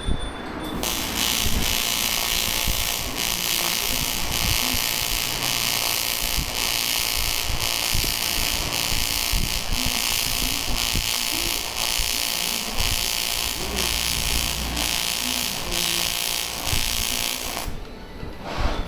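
AC TIG welding arc on aluminium: a steady buzzing hiss that starts abruptly about a second in and cuts off about a second before the end.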